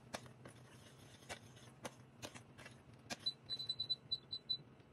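Metal teaspoon stirring oatmeal in a small stainless steel pot. It clicks against the pot's sides several times, then gives a quick run of short high squeaks as it scrapes the bottom, about three seconds in.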